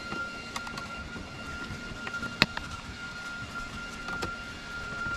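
Small clicks and taps of a screwdriver working the screw terminals of a 240 V to 12 V converter as the mains wires are fastened in, with one sharp click about two and a half seconds in. Under it is a steady faint high whine.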